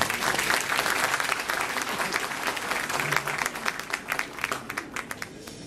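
Audience applauding in a hall, the clapping dying away toward the end.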